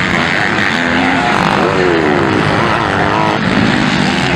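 Several motocross bikes' engines revving hard as they race past, with the pitch climbing and dropping through throttle changes and gear shifts, one rev falling away sharply about halfway through.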